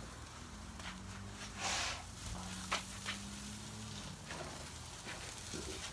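Food on a charcoal grill sizzling faintly, with a brief louder hiss about two seconds in and a few light clicks. A low steady hum runs underneath for the first few seconds.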